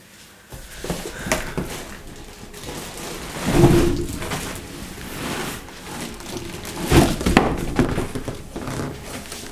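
Unboxing handling noise: packaging and box contents being rustled and moved about, with two heavier thuds, about three and a half seconds in and again around seven seconds.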